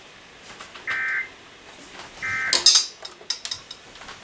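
Emergency Alert System SAME data bursts: two short buzzy digital tones about a second and a half apart, the end-of-message signal that closes the test. Right after the second burst comes a loud clatter, followed by several smaller knocks.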